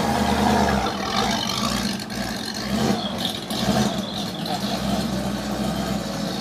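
Engine of a vintage open sports car running steadily at low revs as the car pulls slowly away.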